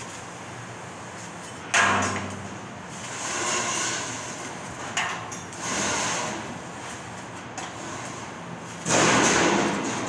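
CNC laser cutting machine cutting steel sheet: the cutting head gives out bursts of hissing gas as cuts start, two sudden loud ones about two seconds in and near the end, with softer hissing swells between as the head moves on.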